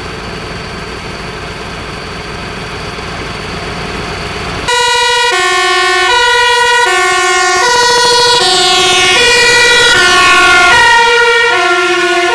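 Fire engine's two-tone siren sounding as the truck drives off, alternating evenly between a high and a low note and dropping slightly in pitch as it passes close. It starts about five seconds in, after a steady engine rumble.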